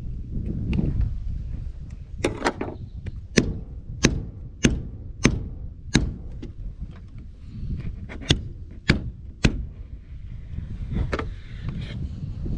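Sharp knocks, about a dozen, mostly a little over half a second apart, as a new windshield glass is tapped into its rubber seal in a 1962 Peterbilt 351 cab.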